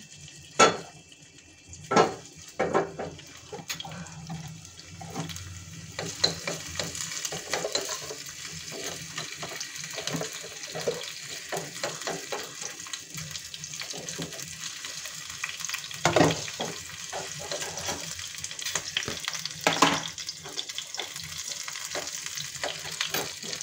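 Sliced ginger and green chillies sizzling in hot desi ghee in a small pan, a steady frying hiss that sets in about six seconds in. A metal spoon clinks and scrapes against the pan as they are stirred, with two louder knocks in the second half.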